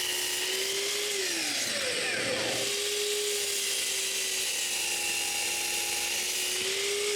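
Electric saw running, its whine dipping in pitch about a second in as the blade takes load cutting a squared wooden block to length, then picking back up.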